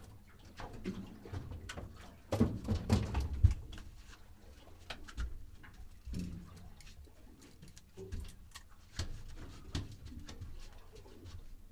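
Scattered knocks and thumps aboard a small fishing boat as fish and gear are handled on the deck. A denser run of heavier low thumps comes about two to three and a half seconds in.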